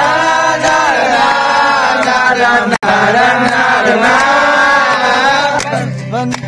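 A group of young men singing together in long, drawn-out held notes, their voices bending slowly in pitch; the sound drops out for an instant a little under three seconds in.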